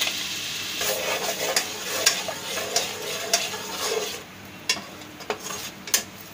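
Spice masala frying in hot oil in a metal pan, sizzling as a slotted spoon stirs it, with repeated scrapes and clicks of the spoon against the pan. The sizzle dies down about four seconds in as the powder takes up the oil.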